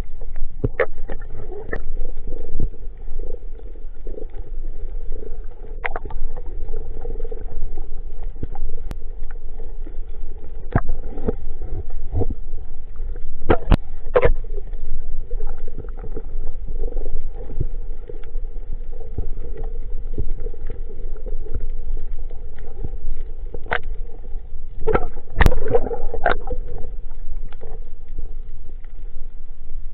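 Underwater sound picked up by a camera below the surface: a steady low rumble with a constant hum, broken by scattered sharp clicks and knocks, with a cluster of them about 25 seconds in.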